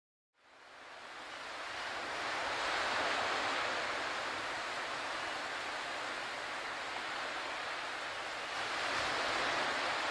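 Sea waves rushing ashore, fading in from silence and surging twice, the second surge about six seconds after the first.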